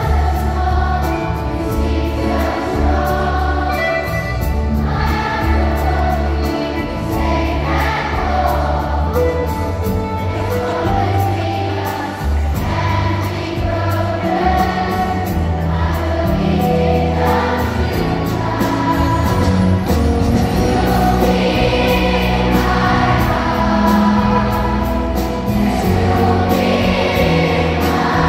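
A massed choir of thousands of schoolchildren singing with an amplified live band, heavy bass underneath, as heard in a large arena.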